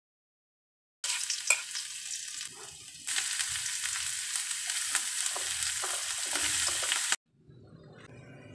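Hot oil sizzling in a wok as vegetables are stir-fried, with a metal spatula now and then clicking and scraping against the pan. The sizzle starts about a second in, gets louder about three seconds in as carrot slices go into the oil, and cuts off suddenly near the end.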